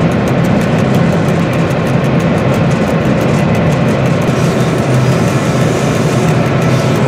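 Dr12 diesel locomotive heard from inside its cab while under way: the engine's steady low drone with running noise of the train on the track.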